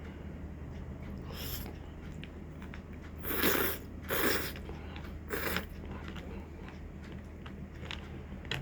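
A person eating noodles, with three short, loud slurps between about three and five and a half seconds in and a fainter one earlier, over a steady low hum.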